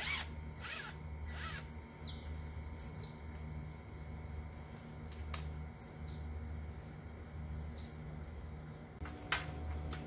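Cordless power driver spinning out a bolt on a walk-behind tiller's transmission case in three short bursts in the first second and a half, then a couple of sharp clicks. Birds chirp throughout over a low pulsing hum.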